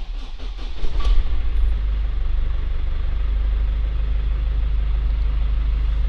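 Diesel engine of a GAZelle van started by the starter: it cranks briefly, catches about a second in, then settles to a steady idle.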